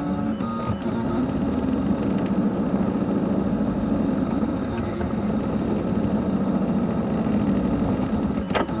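Vacuum cleaner motor running steadily, with a short sharp sound near the end.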